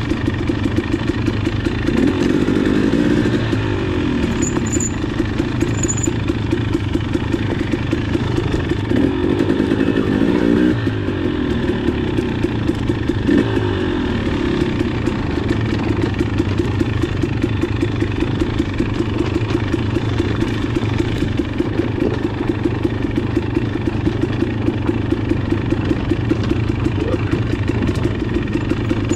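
Two-stroke enduro dirt bike engine, a Husqvarna TX300i, running steadily while being ridden on a trail. The revs rise and fall a few times, briefly about 2, 9 and 13 seconds in.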